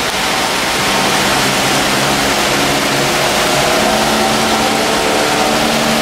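Heavy rain pouring steadily, a dense even hiss, with a low engine hum from traffic underneath.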